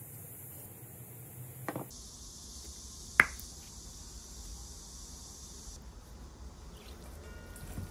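Quiet kitchen handling noises while making dumpling filling in glass and steel mixing bowls: a few soft clicks, then one sharp click a little after three seconds, and a faint short ring near the end.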